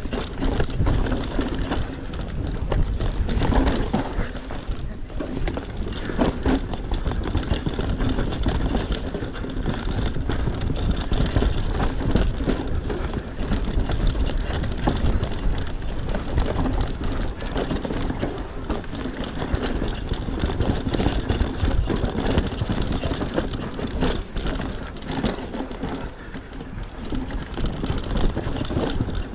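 Mondraker Superfoxy enduro mountain bike descending a trail at speed: continuous clattering and rattling of the chain, frame and tyres over roots and rocks, with a steady low rumble.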